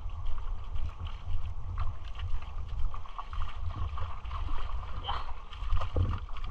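Wind buffeting the microphone in uneven gusts, a heavy rumble, with shallow water lapping faintly at the shoreline.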